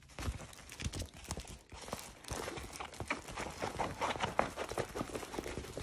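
A rolled diamond-painting canvas being unrolled and handled, its stiff release-paper cover crackling and crinkling in irregular small clicks.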